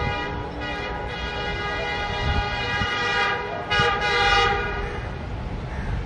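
Horn of a ZCU-20 diesel-electric locomotive sounding on an approaching train: a long steady blast, a brief break, then a louder second blast around four seconds in that stops about a second later.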